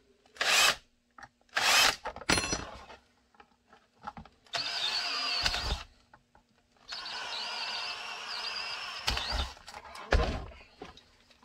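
Cordless drill drilling holes through a Kydex holster shell: a few short trigger bursts, then two longer runs of about one and a half and two and a half seconds, the motor's whine wavering in pitch.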